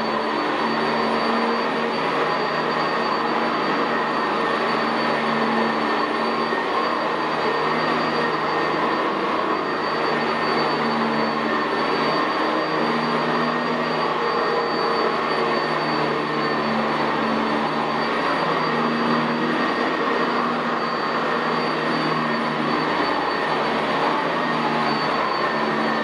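Sanitaire SC679J commercial upright vacuum cleaner running steadily as it is pushed across carpet, its motor and brush roll giving a dense rushing noise with a thin high whine on top.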